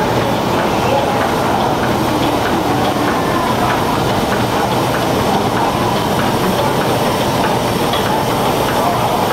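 Several stationary steam engines running together: a steady mechanical clatter with faint, evenly repeated ticks.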